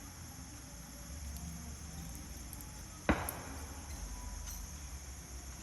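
Steady insect buzzing, with a single sharp knock about three seconds in.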